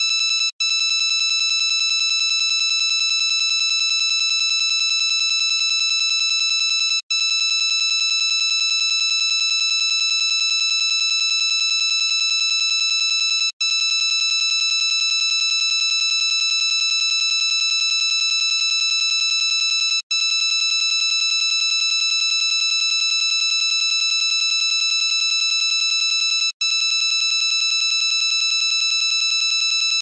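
Mock Emergency Alert System alarm: a continuous, loud, harsh high-pitched electronic tone held at one pitch, broken by a split-second gap about every six and a half seconds.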